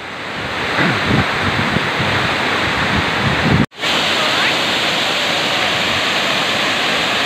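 Waterfall pouring into its plunge pool: a loud, steady rush of falling water, with low buffeting on the microphone in the first few seconds. It drops out for an instant a little past halfway, then carries on unchanged.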